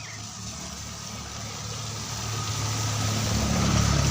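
A motor vehicle's engine running and growing steadily louder as it draws near, with a low hum and rising road noise.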